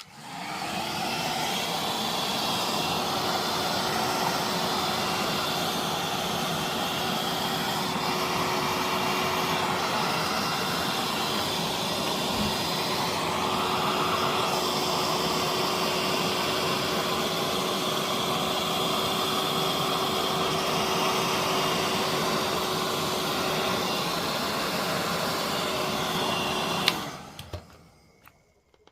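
Hair dryer switched on and blowing steadily with a constant motor hum, then switched off with a click about 27 seconds in and winding down. It is heating the phone's back cover so the double-sided tape adhesive softens and bonds.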